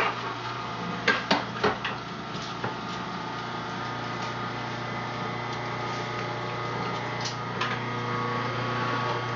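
Omega masticating juicer's motor running with a steady hum as it crushes cilantro, with a few clicks and knocks in the first couple of seconds.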